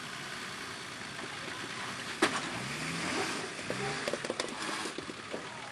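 Four-wheel-drive's engine running as it crawls over a boulder, with a couple of short rises in revs and one sharp knock about two seconds in.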